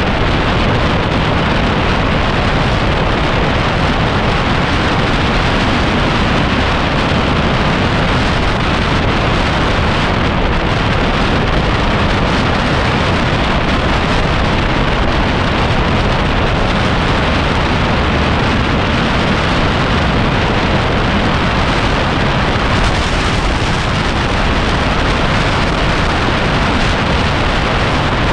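Steady, loud wind rush on an action camera's microphone on a moving motorbike at road speed, an even noise with no clear engine note standing out.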